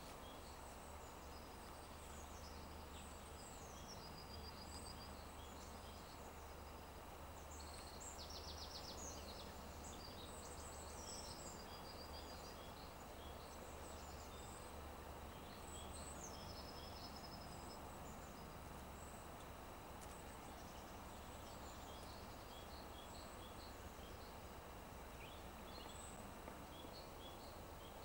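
Faint songbird calls and song in the background over a steady outdoor hiss and low rumble. One bird repeats a falling run of high notes ending in a short flat trill about three times, and there is a quick rattle about eight seconds in.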